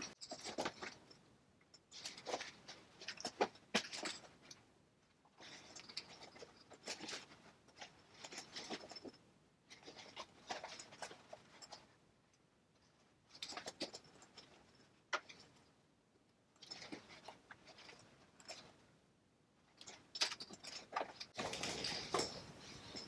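Faint, intermittent rustling and scraping of a cotton canvas tool bag being handled while it is hand-stitched with waxed thread, in short bursts with quiet gaps between.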